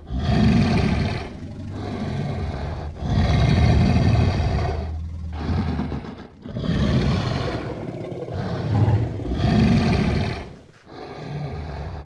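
Steppe mammoth sound effect: a run of about half a dozen deep, rough calls in quick succession, with short breaks between them, cutting off suddenly at the end.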